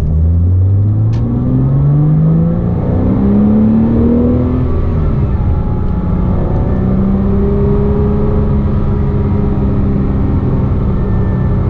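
Porsche Cayman S 3.4-litre flat-six heard from the cabin, revving up steadily for about four seconds, then shifting and running steadily at lower revs. A high whistling whine follows engine speed: the sign of a worn water pump bearing.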